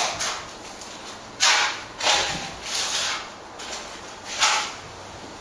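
A plastering trowel scraping wet lime plaster across a wall in a series of short, irregular swishing strokes, the strongest about one and a half seconds in.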